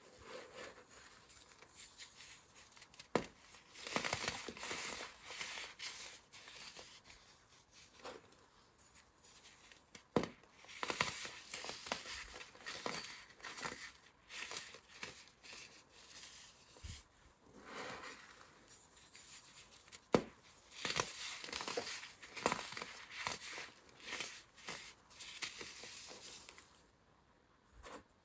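Fingers squeezing and raking dyed baking soda powder over a bed of broken dry shards, giving repeated crunchy, crumbling bursts with occasional sharp clicks.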